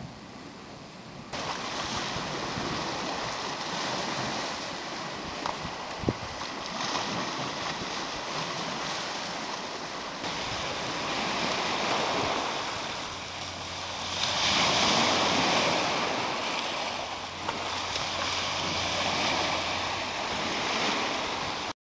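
Small Baltic Sea waves washing against a rocky, pebbly shore, in surges that swell and ease every few seconds. There is a single sharp click about six seconds in.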